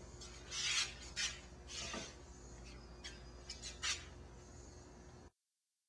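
Faint background hum with a few soft, short rustles and clicks. The sound cuts off to dead silence about five seconds in.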